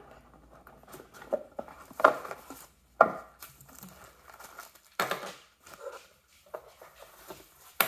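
Cardboard box and plastic packaging being handled and opened: scattered crinkling and rustling, with a few sharp, louder handling knocks about two, three and five seconds in.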